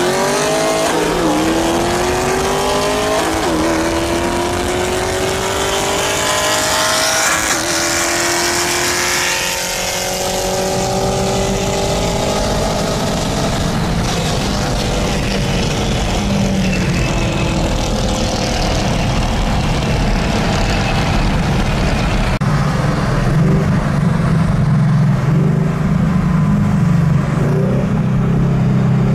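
A high-performance car accelerating hard, its engine pitch climbing through several upshifts over the first ten seconds, then holding and slowly falling away. Over the last several seconds a loud, steady low engine drone comes in close by.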